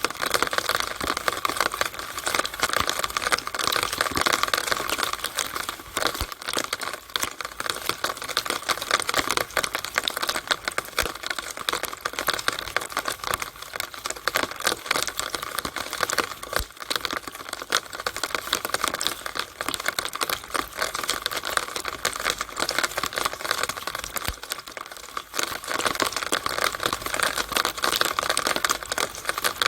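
Rainwater running through a downspout drainpipe on a rainy day: a steady, dense crackle of trickling and splashing water.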